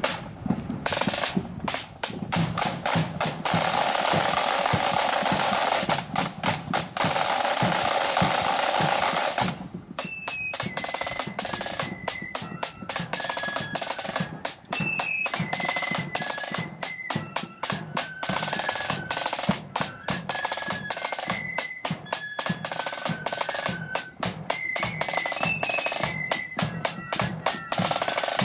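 Marching flute band: the side drums play a long, dense roll and break off about nine and a half seconds in. The flutes then take up a march tune over a steady drumbeat.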